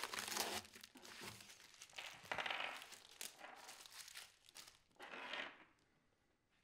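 Thin plastic bag crinkling as it is handled and emptied, in three short bursts, with a few light clicks between them.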